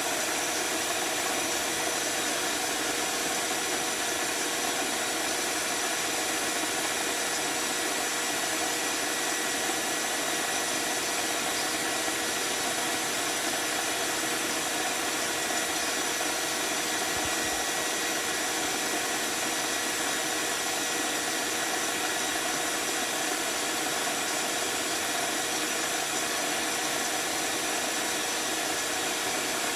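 Bee vacuum's motor running steadily with a constant whine, its hose held to the exposed comb in the wall cavity to suck up honeybees.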